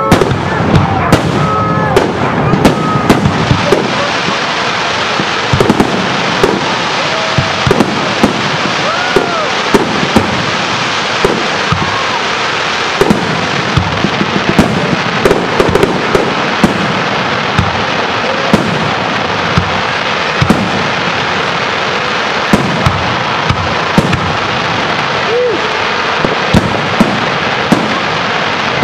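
Fireworks display: many shells bursting in sharp bangs at irregular intervals, several a second at times, over a continuous dense crackle, with a crowd's voices faintly underneath.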